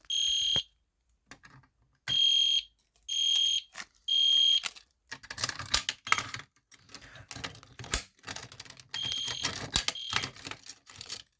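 EST Genesis fire alarm horn sounding in short, shrill blasts, four in the first five seconds and one more about nine seconds in. Between them comes a run of clattering and clicking, like the alarm hardware being handled.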